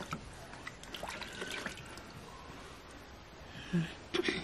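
Water trickling and splashing as hands are washed over a plastic basin.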